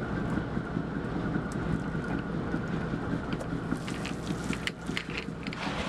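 Fishing boat's engine running steadily, with wind buffeting the microphone. In the second half, a quick run of sharp splashes and drips as the loaded net is lifted clear of the water.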